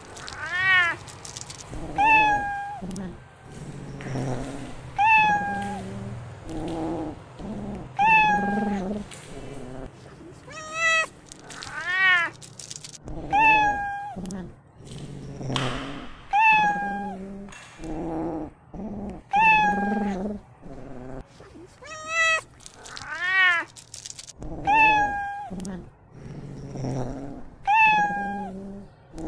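A young cat meowing over and over, about one call every second and a half, with its toy held in its mouth. Some calls rise and fall in pitch and others are short and falling, with softer low sounds between them.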